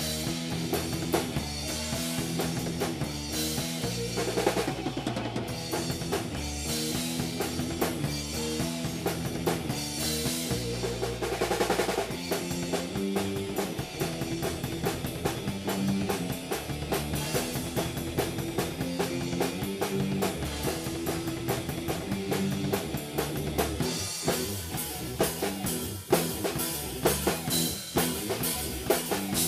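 A rock band playing live and loud on electric guitars over a full drum kit, with chugging low notes and frequent cymbal hits. The cymbal beat gets busier near the end.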